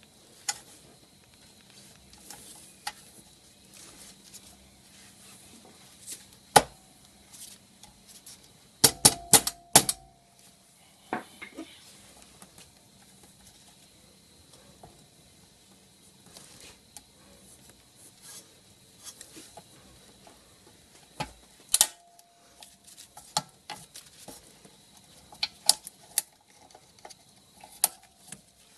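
Sharp clicks, taps and scrapes of a flat screwdriver prying the vulcanized-on top off a Subaru EA82 bimetallic cold-start air bypass valve. The clicks are scattered, with a quick cluster of several loud ones about nine seconds in and more near the end.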